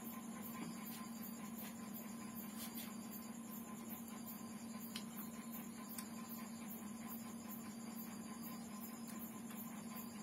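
Steady low electrical-sounding hum with a faint high-pitched ticking about three times a second, and two sharp clicks about halfway through.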